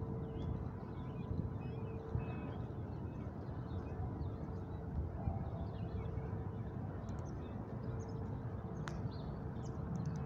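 Outdoor ambience: a steady low rumble with a faint constant hum, and faint bird chirps scattered throughout.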